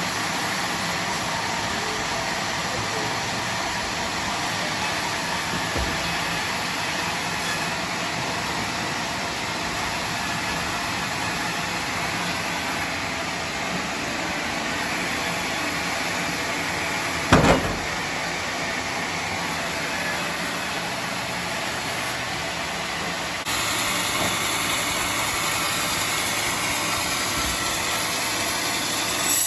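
Homemade bandsaw sawmill running and cutting through a teak log, a steady loud machine and blade noise. A single sharp knock comes a little past halfway, and the noise steps up abruptly later on.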